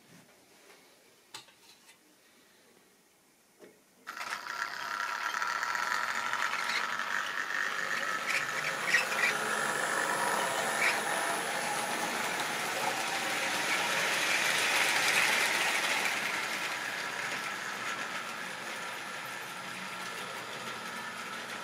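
Model railway train running on the layout's track: the locomotive's electric motor whirring and the wheels rolling, with a few clicks over rail joints. It starts suddenly about four seconds in, grows louder toward the middle and then slowly eases off.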